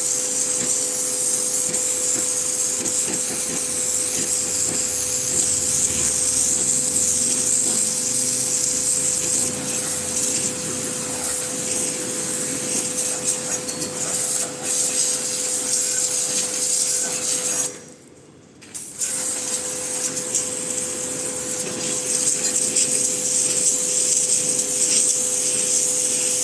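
Pressure washer spraying water in a steady hiss over the even hum of its motor and pump. It cuts out for about a second around two-thirds of the way through, then starts again.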